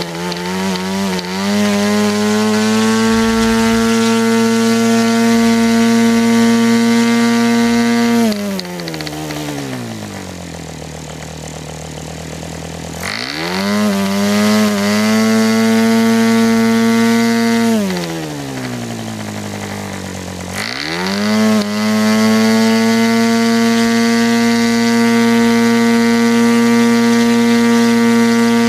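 Fox .50 model airplane engine with a Davis diesel conversion head, spinning a 14x6 APC propeller at high speed. About eight seconds in it slows to a low speed for a few seconds and then speeds back up, and it dips and recovers once more near two-thirds of the way through before running steadily again.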